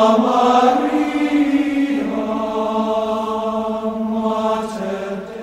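Chanted singing on long held notes, changing pitch about two seconds in and fading near the end.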